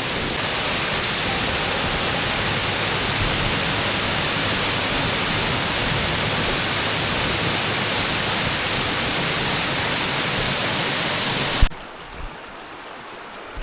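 Russell Falls pouring: a steady, loud rush of falling water. It cuts off with a click near the end, giving way to a quieter, softer water sound.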